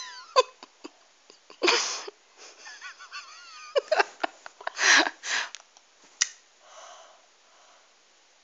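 A child's sharp, wheezy breaths and short high whimpers as he strains to pull out his own loose front tooth. A few forced breaths come in bursts, with a wavering whimper between them.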